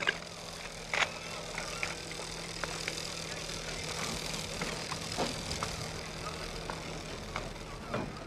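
Small boat's engine idling steadily at low speed, with a few scattered knocks. The hum fades out near the end.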